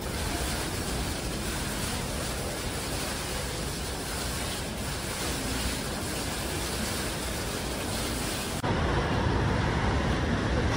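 Steady hiss of water droplets falling from a digital water-curtain display. About eight and a half seconds in it cuts abruptly to louder city street noise with a low traffic rumble.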